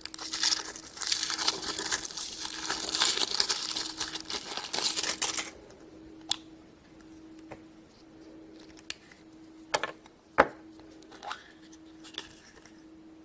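Crinkling and rustling as a surprise egg's wrapper is torn off, for about the first five and a half seconds, then scattered light clicks and taps as the egg is handled and opened. A faint steady hum runs underneath.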